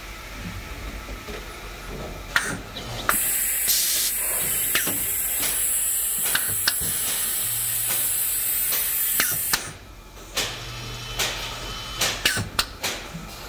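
Pneumatic label-applicator arm working: a vacuum suction pad's air hisses loudly for about six seconds, starting a few seconds in, while air cylinders click and knock as the arm moves. A low hum comes in twice during the second half.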